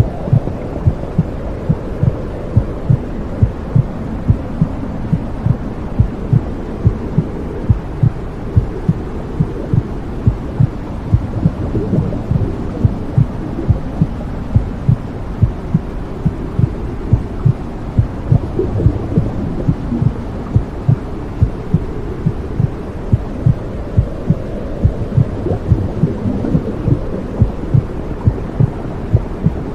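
Womb sound for soothing a baby: a steady heartbeat, a little more than one beat a second, over a continuous low whooshing rumble.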